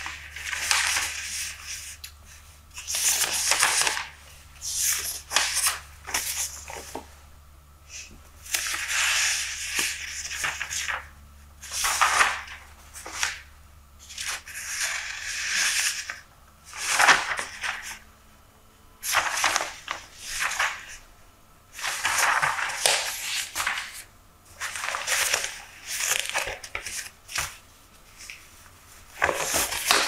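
Newspaper pages being handled and turned close to the microphone: repeated bursts of paper rustling and crinkling, each a second or so long, with short quieter pauses between them.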